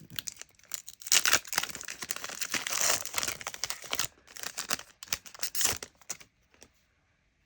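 Foil wrapper of a Pokémon trading card booster pack crinkling and crackling as it is handled, stopping shortly before the end.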